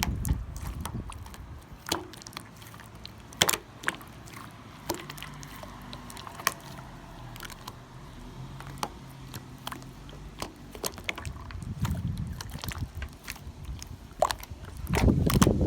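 Cloud slime being worked by hand, giving scattered sharp crackles and pops. Wind rumbles on the microphone at the start and again near the end.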